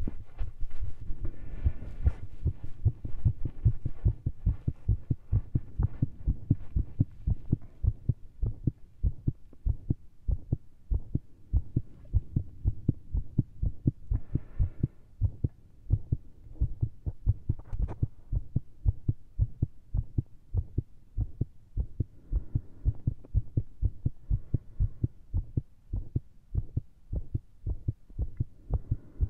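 Human heartbeat heard through a stethoscope: fast, closely spaced thumps at an uneven rhythm. The beat is very irregular, with skipped and extra beats (PVCs) after heavy caffeine and exertion.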